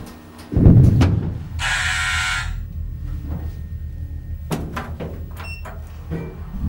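Lift cabin sounds: a heavy low thud about half a second in, then a brief hissing buzz lasting just under a second, over a steady low hum, with a few light clicks later on.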